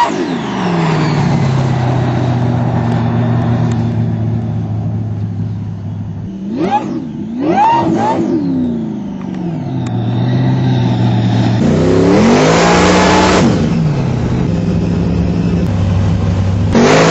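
Engine revving and idling: it drops from high revs to a steady idle, is blipped twice in quick succession, then is held at higher revs for a second or two before falling back, and rises again near the end.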